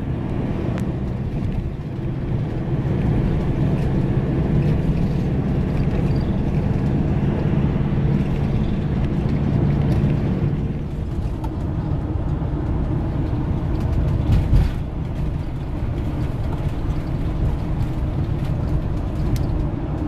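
Steady road and engine noise of a car driving at speed, heard from inside the cabin, a low rumble throughout with a low hum that fades about halfway through.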